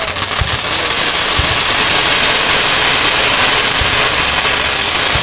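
Firework fountain hissing steadily as it throws up a column of sparks, with three faint low thumps.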